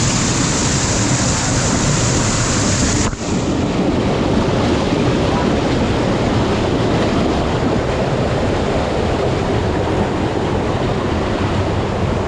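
Mountain stream water rushing, a loud steady roar of flowing water close by. About three seconds in there is a brief drop-out, after which the sound is a little duller in the highest hiss.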